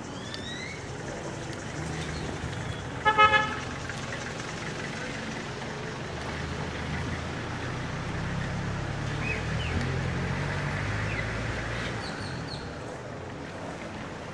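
A vehicle horn gives a quick burst of short toots about three seconds in, the loudest sound over the street noise. Later a motor vehicle's engine passes with a low hum.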